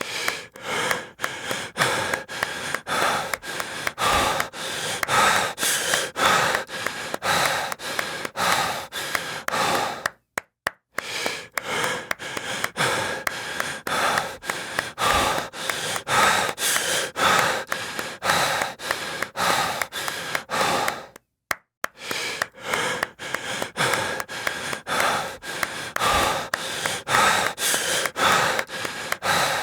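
Heavy breathing with repeated sharp hand claps, a few a second. The sound cuts out briefly twice.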